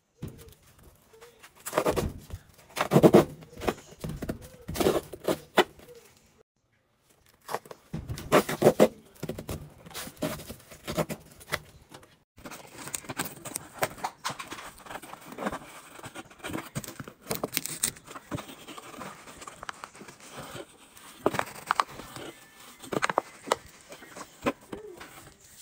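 Cardboard detergent boxes handled and set down on a washing machine's lid: a series of knocks, scrapes and rustles with short pauses. Near the end, a plastic scoop scrapes through powdered laundry detergent.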